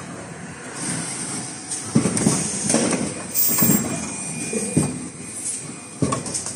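Automatic N95 cup-mask production machine running: irregular mechanical clunks and clatter over a steady high hiss.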